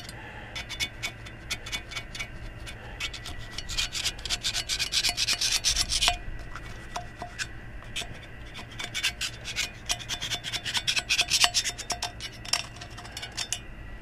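Flathead screwdriver scraping and picking broken hub debris out of the bore of an outboard propeller: rapid scratching and clicking of the blade against the metal barrel, in two busier spells, one in the first half and one in the second. The debris is what is left of the rubber hub that spun.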